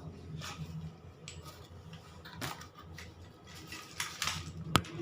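Scattered light clicks and knocks, with a sharp click near the end, over a steady low hum.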